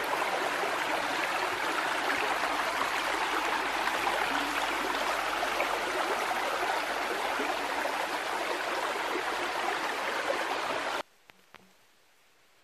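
Shallow stream running over a gravel and stone bed: a steady rush and babble of water that cuts off abruptly about eleven seconds in.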